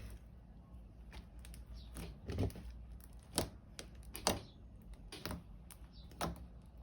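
Homemade glue slime being mixed and kneaded by hand, giving irregular sticky clicks and pops about once a second.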